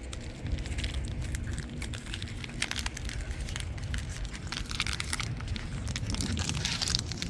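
Dogs chewing and tugging a home-made sock toy: a dense run of irregular crackles, like a crackling fire, over a low rumble.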